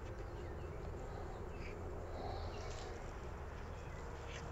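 Honeybees buzzing faintly around an open Layens hive, with a few soft taps as the wooden frames are handled.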